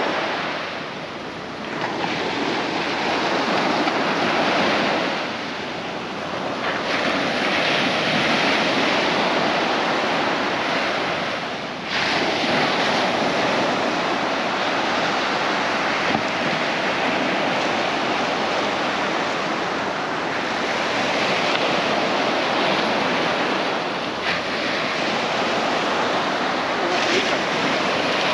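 Shore waves breaking and washing up the sandy beach, the surf rising and falling in strength every few seconds, with wind on the microphone.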